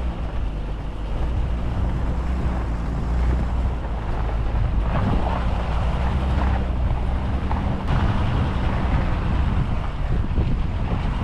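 A Nissan Patrol 4WD's engine drones steadily under load as it climbs a steep, rocky off-road track. Scattered knocks and rattles come in around the middle.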